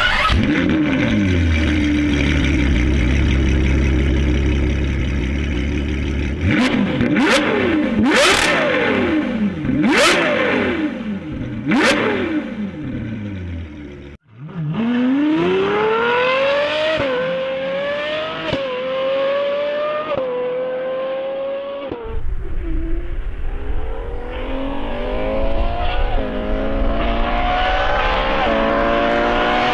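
Novitec-tuned Ferrari 812 Superfast's 6.5-litre V12 flares and settles to idle, then is revved sharply about four times. After a cut, the engine is heard at full throttle accelerating hard, its pitch rising and dropping back at each upshift, in two long runs.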